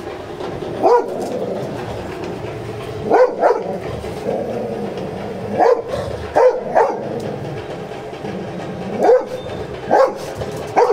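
A large yellow-coated dog barking, about nine short barks, singly and in quick pairs, a second or two apart.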